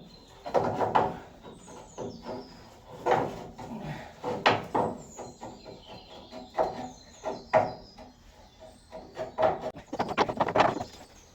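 Irregular metal clanks and knocks, about ten of them, some ringing briefly: tools and steel parts of the axle and suspension being worked loose.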